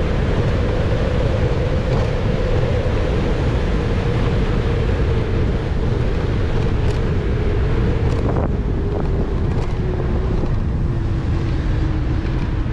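Wind rushing over an action camera's microphone as a mountain bike coasts fast down an asphalt path, with a steady tyre hum that slowly drops in pitch as the bike slows from about 32 to 18 mph. A few faint clicks come through past the middle.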